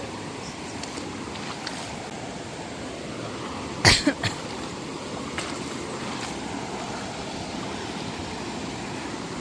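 Steady rushing outdoor noise, with a sharp knock about four seconds in and a second, smaller knock just after.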